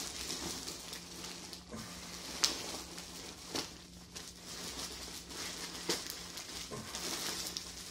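Green plastic poly mailer bag crinkling and rustling as it is handled and pulled open, with a few sharp snaps of the plastic.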